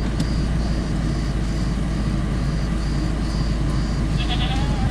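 Car engine idling with a steady low hum. A faint, short high-pitched chirp repeats about twice a second.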